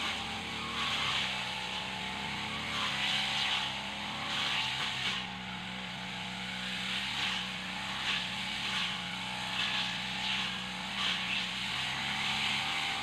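A brush cutter (string/blade grass trimmer) engine running steadily at cutting speed, with a hiss that swells and fades every second or so.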